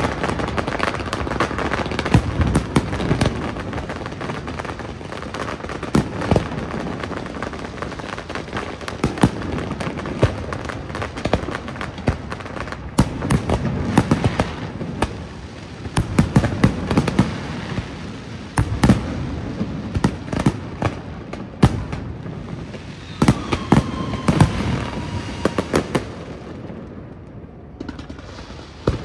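Fireworks display: aerial shells bursting in a rapid, irregular series of bangs over continuous crackling. A brief falling whistle comes about three-quarters of the way through, and the bursts thin out near the end.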